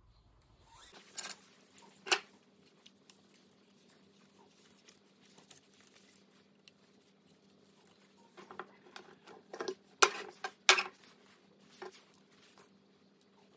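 Carbon-fibre drone frame parts being handled: the tube-legged plate, loose carbon plates and small plastic fittings clicking and knocking against each other and the desk, several sharp knocks in a cluster near the end, over a faint steady hum.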